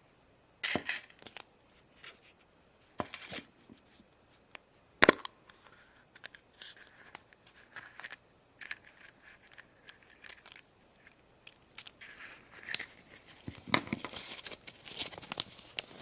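A Kinder Surprise egg and its toy being unwrapped and opened by hand: scattered clicks and short crinkling and tearing of wrapping, a sharp snap about five seconds in, and denser rustling near the end.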